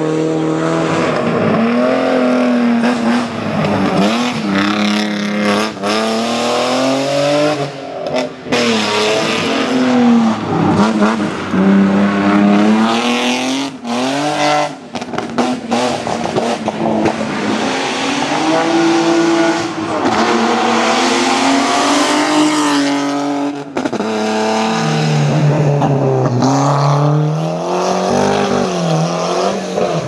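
Competition car engines at hard throttle on a hillclimb, revving up and dropping back again and again through gear changes and braking for the bends. Several cars pass in turn, the last with a deeper engine note.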